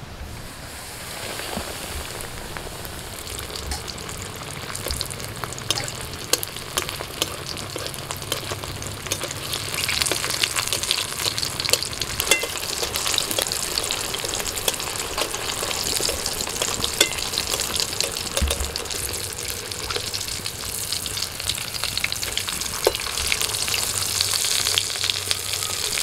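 Pomfret coated in semolina and gram flour deep-frying in hot oil in a kadai, a dense sizzle full of fine crackles. The sizzle builds just after the fish goes in and grows louder about ten seconds in.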